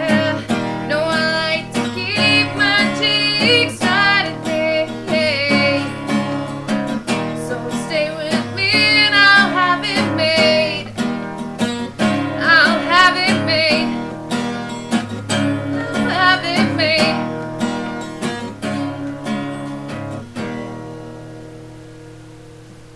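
A solo voice singing over a strummed acoustic guitar. The singing stops about three-quarters of the way through, and the guitar plays on and then fades away near the end, closing the song.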